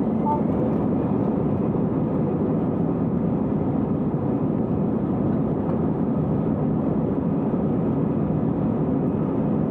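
Jet airliner engines and airflow heard from inside the passenger cabin: a loud, steady, unbroken rush during the departure.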